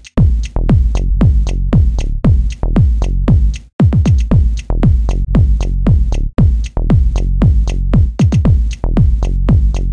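Electronic dance music with a steady kick-drum beat, about two beats a second, over heavy bass and ticking hi-hats; it drops out briefly a little before the middle.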